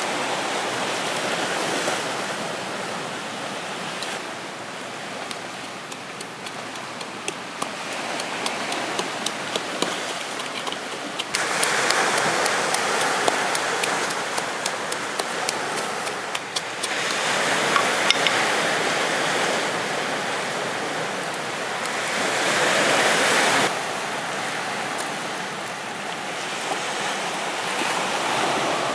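Wood fire crackling under roasting crabs, with many small pops over a steady rushing noise. The rush gets louder in stretches that begin and end abruptly.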